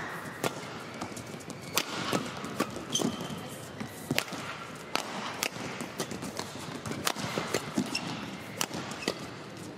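Fast badminton doubles rally: sharp racket-on-shuttlecock strikes, about one every half second to second, in a large arena.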